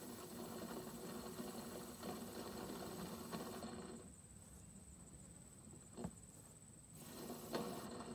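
Aerosol spray-paint can spraying in a long hissing burst that stops a little over three seconds in. A short click follows, and a second burst starts near the end.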